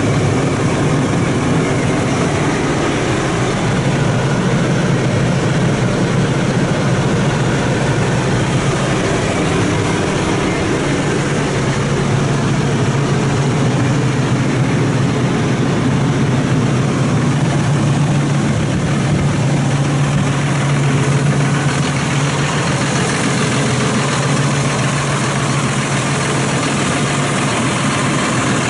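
2015 John Deere 6155RH tractor's 6.8 L six-cylinder diesel engine idling steadily at about 1,000 rpm.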